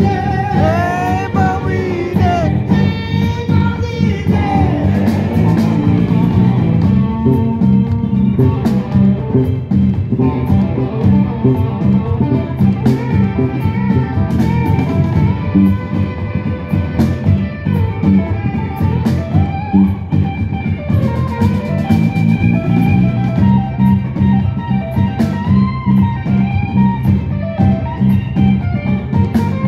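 Live rhythm-and-blues band playing loud, with electric guitar, bass guitar and drums.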